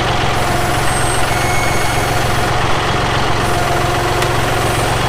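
Tractor's diesel engine running steadily at low revs, with an even, fast low pulsing.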